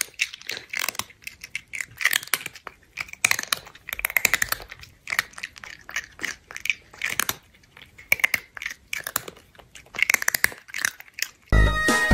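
Chewing and crunching sounds of someone eating, in irregular clusters of bites. Music starts suddenly near the end.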